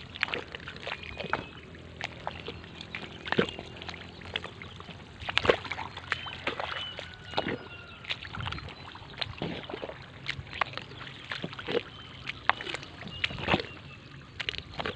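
A person wading through deep pond water, with irregular sloshing and splashing at each step.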